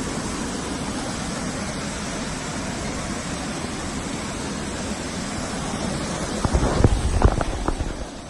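Waterfall rushing steadily. Near the end, a short cluster of loud low bumps buffets the microphone.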